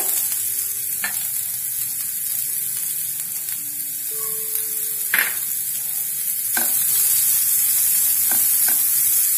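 Diced carrots, green beans and onion frying with a steady sizzle in oil in a nonstick frying pan, with a few sharp taps on the pan as the carrots are tipped in. From about seven seconds in, a spatula stirs the vegetables and the frying gets louder.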